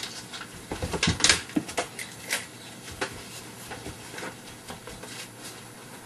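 Scattered knocks, thumps and rustling of someone moving about a room and handling things, at an uneven pace with no steady rhythm.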